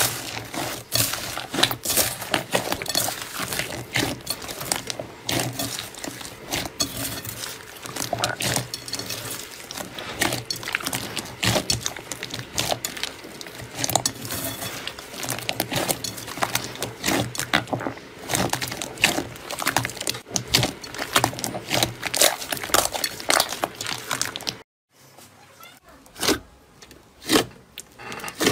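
Hands squeezing and kneading a thick grey slime under a crunchy white beaded crust, giving dense crackling, popping and squishing. Near the end the sound cuts off, and a few sparser squelches follow as a hand pushes into a soft purple slime.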